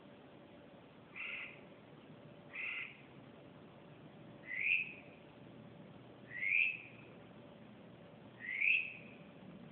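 A bird calling repeatedly, about every two seconds: two short calls, then three rising calls that slur upward.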